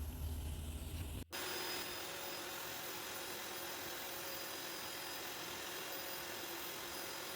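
Vacuum cleaner running. A deep rumble cuts off abruptly about a second in, and after that a steady hiss with a faint high whine carries on.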